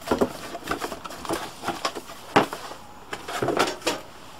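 Cardboard box and moulded pulp packaging being handled on a stainless steel worktop: scraping and rustling with scattered knocks, the sharpest about two and a half seconds in.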